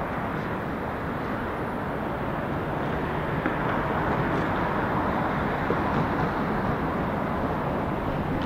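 Jet engines of a Boeing 737 airliner on final approach, heard from a distance as a steady rushing rumble. It grows a little louder about three seconds in as the plane comes closer.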